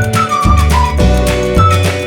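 Background music: a looping tune with a steady bass beat and a high, flute-like melody stepping downward.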